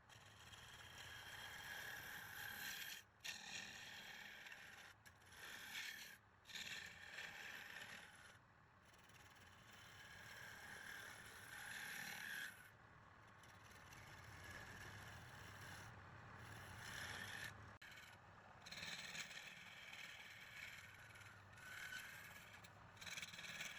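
Wood being turned on a lathe: a turning tool scraping against the spinning wood in a steady, faint hiss, broken by short gaps every few seconds.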